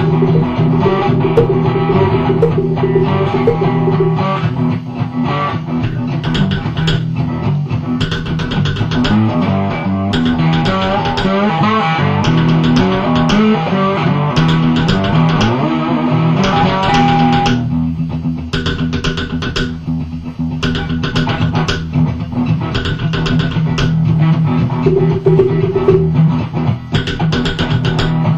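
Improvised homemade music: a cigar box guitar holds low droning notes, with notes sliding in pitch through the middle, over repeated sharp strikes on a log drum.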